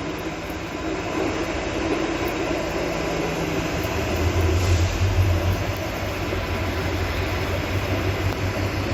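Steady machinery noise in a railway car shed, loud, with a low hum that grows stronger about four seconds in.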